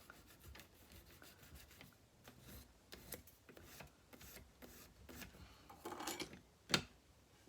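Faint, irregular rubbing strokes of silver tubing being polished and sanded at its end while clamped in a steel miter vise, finishing the edge smooth for a tube rivet. A sharper click near the end.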